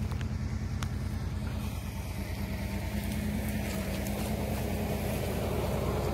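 A vehicle engine idling steadily, with an even low hum and a fast regular pulse.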